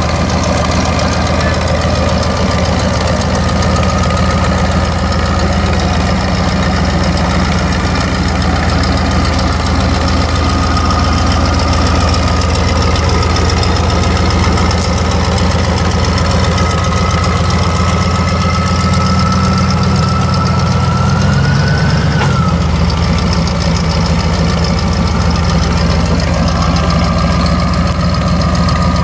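Engine of an Elwell-Parker ESI 300 propane-powered forklift running steadily as the truck is driven around. A steady high whine rides over the engine, rising briefly and dropping out about three-quarters of the way through as the engine note shifts, then coming back a few seconds later.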